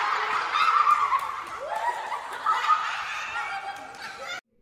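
A group of children laughing together, many voices at once. The laughter is loudest at the start, fades gradually and is cut off abruptly near the end.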